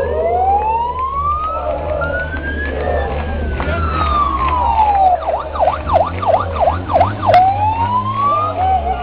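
A siren wailing in slow rising and falling sweeps, switching about five seconds in to a fast yelp of about four sweeps a second, then back to a slow rising wail, over a steady low rumble.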